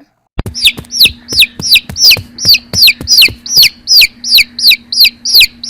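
Baby chicks peeping: a fast, regular series of high peeps that fall in pitch, about three a second, over a faint steady hum.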